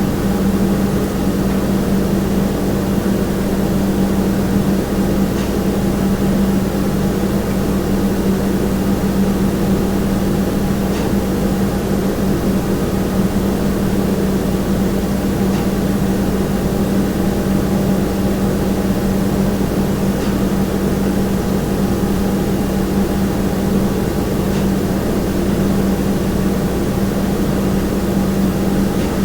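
Kitchen room tone: a steady, unchanging hum with one strong low tone, with a few faint ticks now and then.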